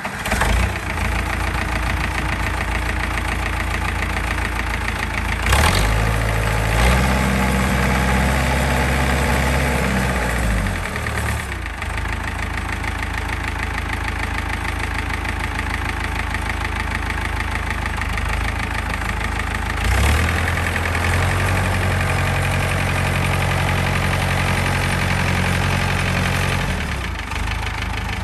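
International Harvester Farmall 504's four-cylinder diesel engine running just after a start, idling and revved up twice for several seconds, about a fifth of the way in and again past two-thirds.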